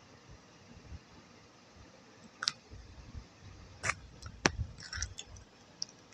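Mouth sounds of someone eating a soft, wet clay paste (multani mitti cream): sticky smacks and sharp clicks, a few loud ones about midway, over soft low chewing.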